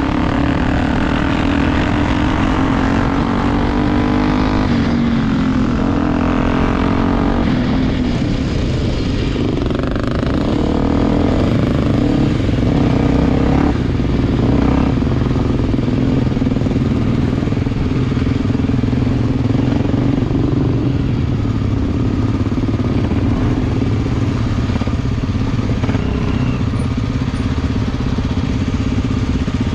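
Honda XR Tornado dirt bike engine running while ridden, its pitch rising and falling with the throttle for the first eight seconds or so, then holding steadier.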